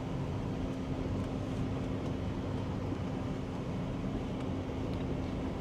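Pickup truck driving, with steady road and engine noise and a constant low hum.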